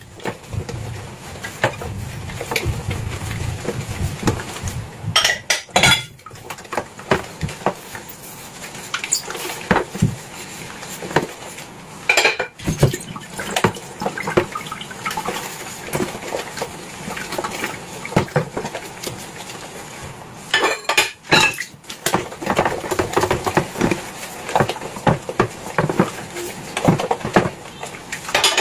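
Dishes and cutlery clinking and knocking together at irregular intervals, as when washing up by hand.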